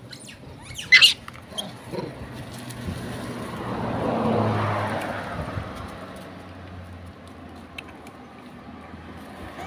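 A macaque gives a brief high squeal about a second in. Then a passing vehicle swells and fades past around the middle.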